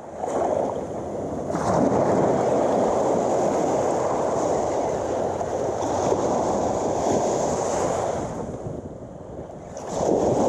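Small surf waves breaking and washing up the beach, with wind buffeting the microphone. There is a brief lull about eight seconds in before the wash swells again near the end.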